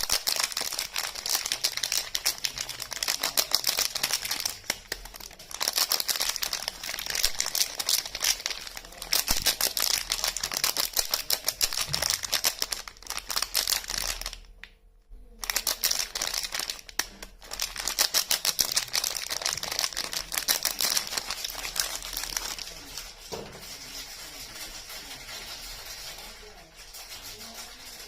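Soap packaging crinkling as it is handled and unwrapped, in dense rapid crackles. There is a brief pause about halfway through, and the crinkling is softer over the last several seconds.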